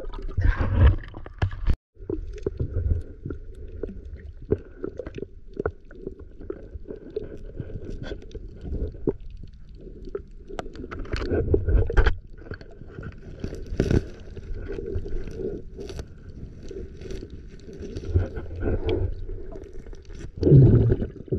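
Muffled underwater sound picked up by an action camera: a low rumble of moving water with scattered clicks and knocks, and a louder surge of low noise near the end.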